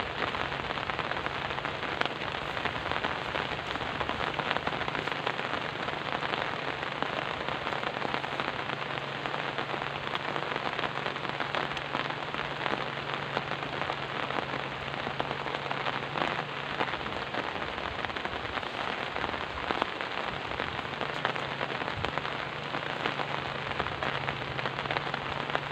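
Steady rain falling, an even hiss made up of many small drop ticks, with a faint low hum underneath that drops out for a few seconds past the middle.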